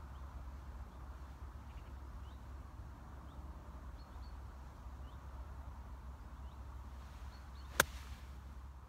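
A golf club striking a ball on a short pitch shot: one sharp click near the end. Faint bird chirps and low outdoor background noise run under it.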